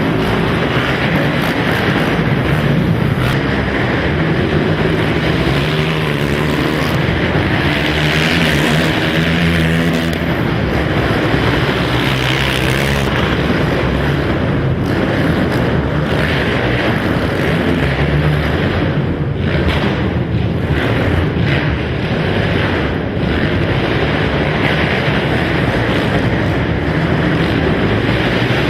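Several racing quad (ATV) engines revving hard together, their pitch rising and falling as the riders go on and off the throttle.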